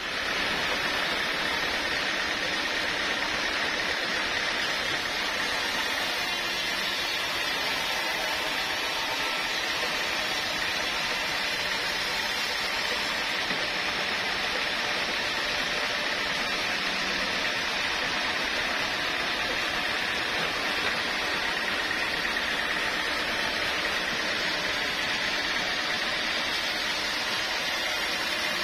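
Sawmill machinery running with an even, unbroken noise and a constant high whine.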